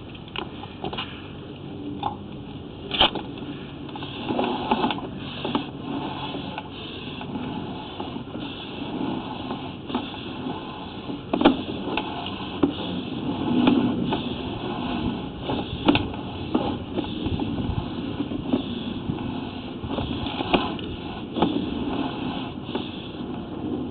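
Sewer inspection camera being pushed along a 4-inch corroded cast iron sewer line: irregular knocks and clicks of the camera head and push cable against the pipe over a steady rushing background.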